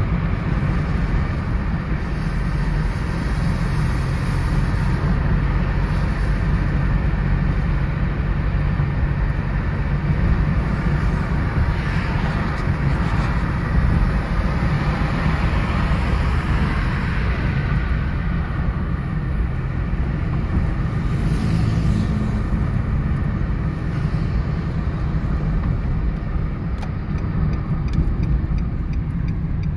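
A 2014 Nissan Micra with automatic transmission driving: a steady low rumble of engine and road noise with tyre hiss, swelling for a few seconds midway.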